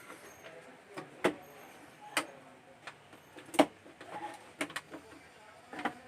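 Sharp plastic clicks and knocks, about seven at irregular spacing with the loudest about three and a half seconds in, from an LED TV's plastic cover being worked open.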